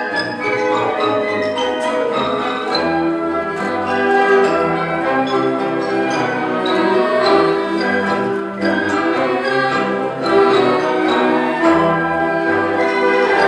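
Instrumental music with orchestral sounds and bell-like mallet percussion, many pitched notes changing throughout.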